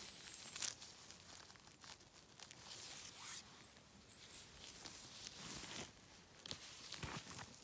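Gloved hand picking small mushrooms out of wet moss: faint rustling and tearing of moss and pine needles, with soft clicks and a sharper click just under a second in.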